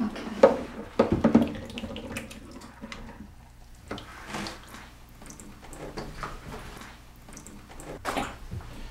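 Water splashing and dripping in short, irregular bursts as a wet, thin Polaroid emulsion sheet is lifted out of its water bath with a brush. The loudest splashes come about a second in.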